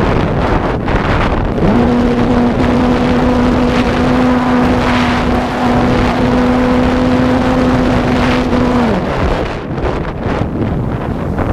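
Heavy wind buffeting the microphone during a flight. A steady mid-pitched drone rises in about two seconds in, holds level for about seven seconds, then drops away.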